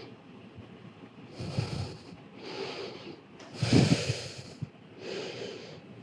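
A person breathing deeply in and out, about four loud breaths roughly a second apart, the loudest near the middle.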